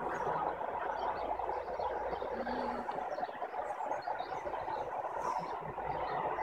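A large flock of common starlings chattering together during a murmuration: a steady, dense din with many short high chirps over it.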